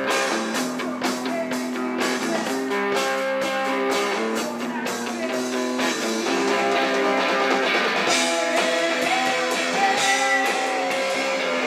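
Live rock band playing a slow song: guitar chords with drums and cymbal hits.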